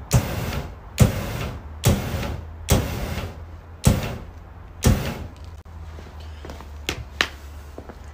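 Two Yonntech Fire DMX gas flame projectors firing bursts of flame, a sudden whoosh about once a second that dies away within half a second, six times, then stopping about five seconds in.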